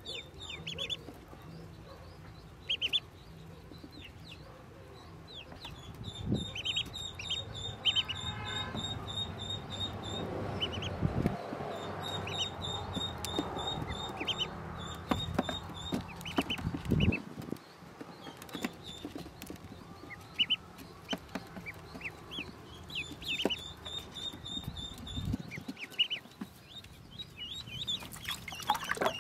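A group of newly hatched Pekin ducklings peeping, many short high cheeps at irregular intervals. Near the end, water splashes as the ducklings are put into a tub of water.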